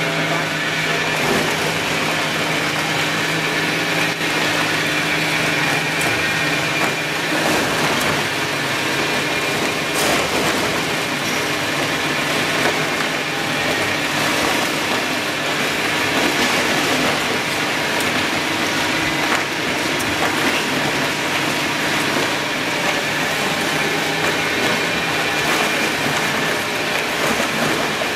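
EPS foam hot melting machine running: the steady mechanical noise of its crusher and screw-extruder motors, with a low hum and a high whine, and a few sharp clicks and knocks.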